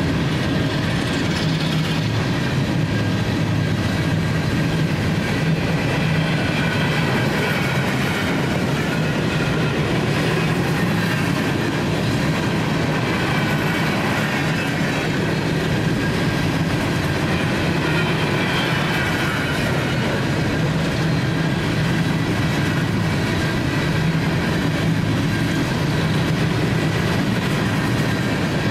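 Freight train of hopper cars rolling past, a steady rumble of steel wheels on the rails, with a faint high wheel squeal that rises and falls.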